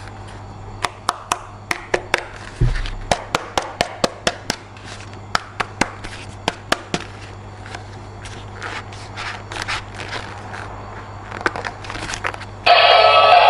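Sharp clicks and taps of hard plastic pieces being handled, many in quick irregular succession, thinning to softer rustling and scattered ticks. Music with singing starts near the end.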